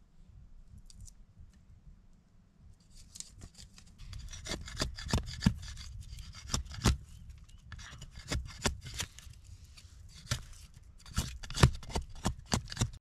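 Machete blade cutting into and splitting a dry stick for fire kindling: a quiet start, then from about four seconds in a run of sharp scraping cuts and cracks of wood, some twenty strokes, loudest near the end.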